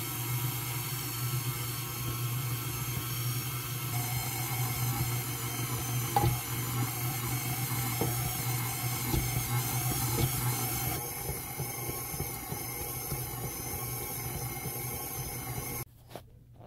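Electric stand mixer running steadily, its flat beater working flour into pizza dough in a stainless steel bowl: a steady motor hum with a few knocks from the beater and dough. The hum cuts off suddenly near the end.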